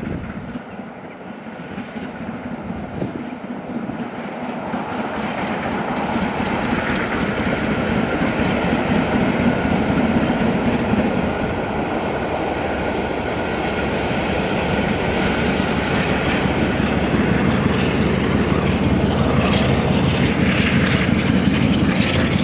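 Steam train hauled by LMS Black Five 4-6-0 No. 44932 running past, growing louder over the first several seconds and then staying loud.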